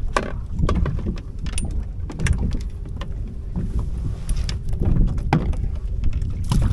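Wind rumbling on the microphone aboard a small fishing boat, with irregular clicks and knocks of fishing gear being handled.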